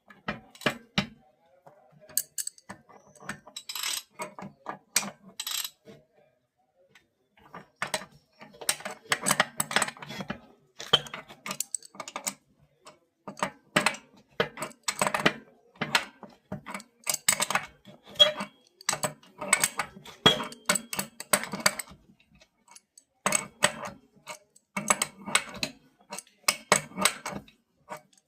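Hand tools and metal parts clicking, clinking and knocking irregularly in short clusters, with a brief pause, during work on a washing machine's bearing.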